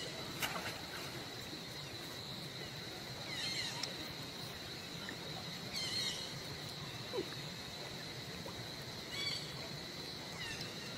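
Outdoor ambience with a steady high-pitched tone, broken by several short, high-pitched animal calls about three, six, nine and ten seconds in.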